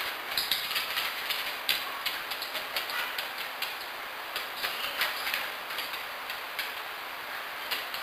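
Dog's claws clicking and scrabbling irregularly on a hardwood floor as it moves and jumps about, over a steady hiss.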